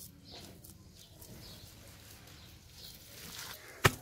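Faint soft squelching and patting of wet clay-and-straw mud being pressed into place by hand, with one sharp click near the end.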